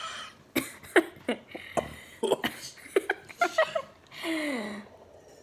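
A person's short bursts of laughter and gasping breaths, ending about four seconds in with one longer moan that falls in pitch.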